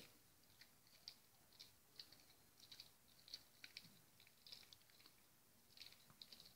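Faint, irregular clicking of a Shih Tzu gnawing on a hard meat treat with a rawhide core, several small clicks a second as its teeth work the chew.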